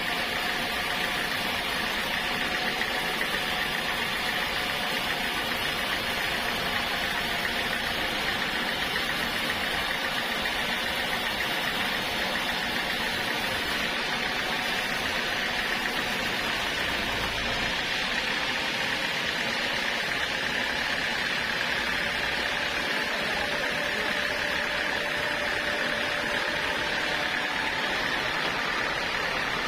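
Sawmill saw machinery running steadily, a constant mechanical drone with a high steady whine.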